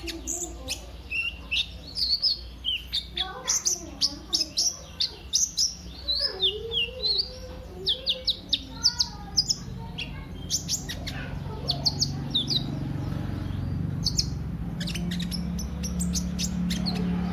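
Kolibri ninja, a sunbird, singing a fast run of sharp, high chirps and short trills with quick pitch sweeps. The notes come thickest in the first ten seconds. A steady low hum grows louder in the second half.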